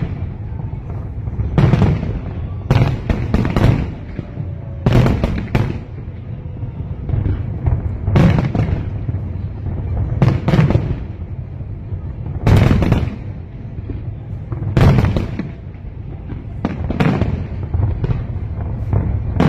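Fireworks display: aerial shells bursting one after another every second or two, over a steady low rumble.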